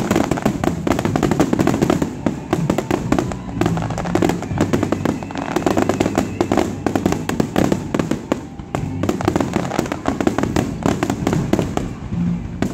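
Fireworks display in a rapid barrage: many aerial shells bursting in quick succession, their bangs and crackling running into one another without a break.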